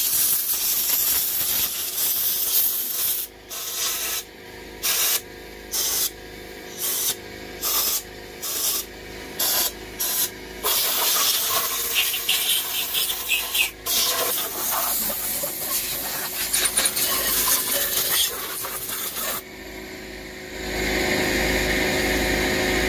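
Compressed-air blow gun on an air hose hissing as it blows out an engine's pushrods. It gives a long blast, then a run of short bursts about one a second, then longer blasts.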